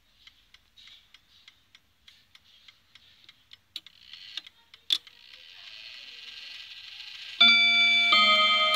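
Gustav Becker mantel clock ticking, then its chime train starts to run with a rising whir about four seconds in. Near the end the hammers strike the chime rods: two ringing notes, the loudest sounds.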